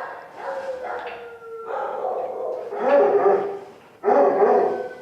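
A dog whining with a long, slightly falling tone, then three louder, drawn-out barks.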